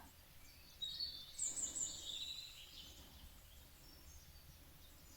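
Faint birdsong: a few high chirps and short trills about a second in, thinning out to a faint hiss.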